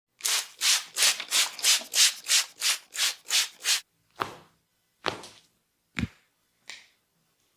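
Massage hands rubbing skin in quick back-and-forth strokes, about three a second. About four seconds in the rubbing gives way to a few separate slower strokes, two of them with a soft thud.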